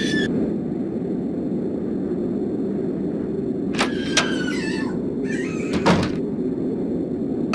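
Steady storm wind noise, with a few sharp knocks about four and six seconds in.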